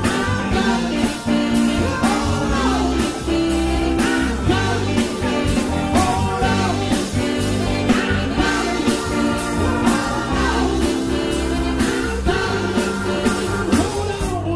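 Live soul band playing with drums, bass, guitar, keyboards and a horn section of saxophones and trumpet, with singing over a steady beat.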